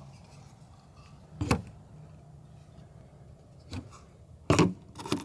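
Plastic water-filler cap on a camper van's side being unscrewed and pulled off its port: a few short sharp plastic clicks, one about a second and a half in and the loudest near the end.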